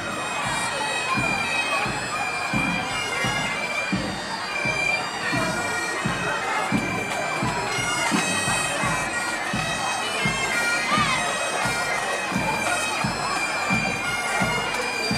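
Pipe band playing: several Scottish Highland bagpipes sounding their steady drones and melody together over a regular drumbeat.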